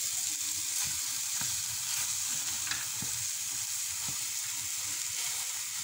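Thick red-bean mixture sizzling in an aluminium pan on a gas burner, a steady hiss, while a wooden spatula mashes and stirs it with scattered soft scrapes and knocks against the pan.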